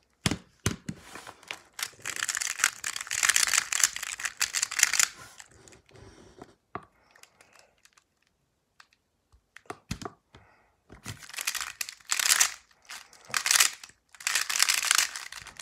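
Square-1 puzzle being turned fast by hand: its plastic layers clack and scrape in rapid rattling bursts. The turning stops for a few seconds in the middle, then starts again.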